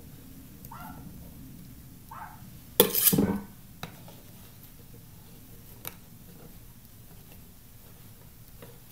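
Metal icing spatula working whipped-cream icing on a cake, mostly quiet, with one short, loud metallic scrape about three seconds in and a few light clicks.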